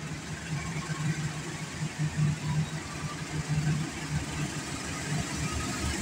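Diesel engine of a KAI CC206 diesel-electric locomotive running as it draws a passenger train slowly along the platform, a low hum that swells and fades unevenly.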